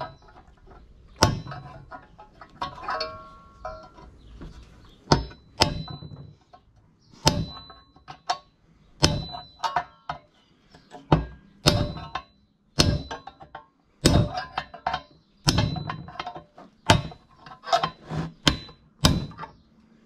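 Hammer blows on a metal punch, driving a tight sleeve out of a sewing machine's aluminium casting: a dozen or more sharp strikes, one every second or so, each with a brief metallic ring.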